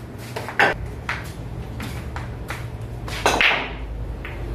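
Pool balls clicking: a handful of sharp, separate knocks of balls striking one another, the loudest a little past three seconds in, over a steady low hum.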